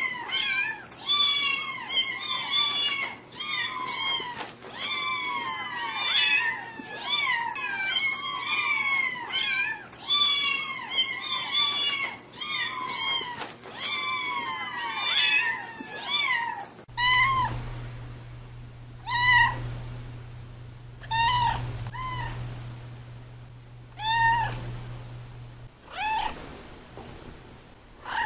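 Domestic cats meowing. For the first half, one cat meows over and over in quick succession. After a sudden cut, a cat meows every second or two over a steady low hum.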